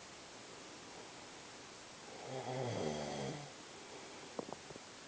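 A man snoring in his sleep: one pitched snore lasting about a second, starting about two seconds in, between quiet pauses.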